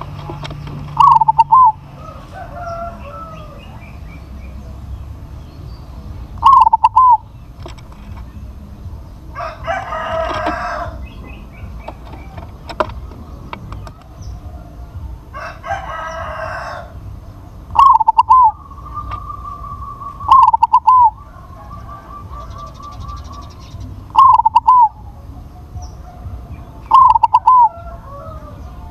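Crossbred zebra dove (perkutut) cooing close by in six short, loud phrases, each a quick double note. A rooster crows twice further off, near the middle.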